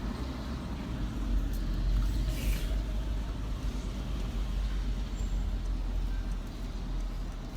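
Car engine idling, a steady low rumble heard from inside the cabin, with a brief hiss about two and a half seconds in.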